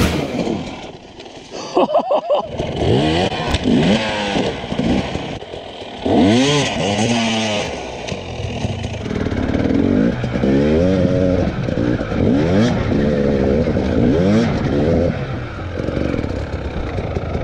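Enduro dirt bike engine revved in short repeated bursts, its pitch climbing and dropping with each blip, as the bike works on a steep snowy slope. A few knocks from the bike come about two seconds in.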